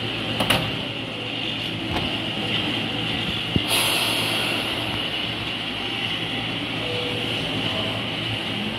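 Chichibu Railway 7000-series electric train standing at the platform with its equipment humming steadily. A few sharp clicks come in the first seconds, followed by a short hiss of air about three and a half seconds in. Near the end a rising motor whine begins as the train starts to pull away.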